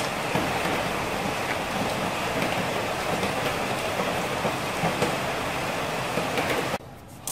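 Steady, even hiss like rain, with a few faint clicks, cutting off abruptly near the end.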